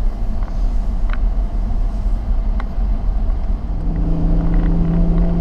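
Low rumble of a car driving slowly over a rough, potholed dirt road, heard from inside the vehicle, with a few small rattles. About two thirds of the way through, a steady engine hum joins in.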